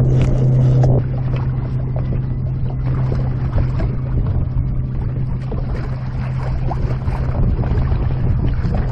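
A steady low hum for about the first second, then wind buffeting the microphone over choppy water lapping at a small boat, with scattered splashes as a hooked fish is brought to the surface and netted.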